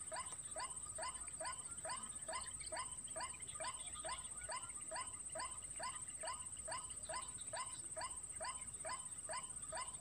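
Recorded call of a white-breasted waterhen (ruak-ruak) played on a loop as a bird lure: short rising notes repeated evenly, about three a second. A steady high whine runs under it.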